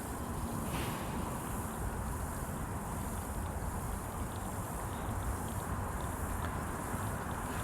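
Steady outdoor background noise, a low rushing like wind on the microphone, with a brief swish about three quarters of a second in.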